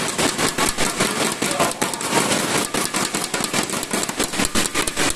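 Audience clapping: a fast, uneven run of claps from many hands.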